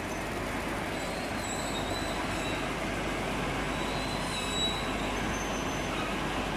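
Kitchen-cloth (lazy rag) making machine running: a steady mechanical noise, with faint high squeaks twice.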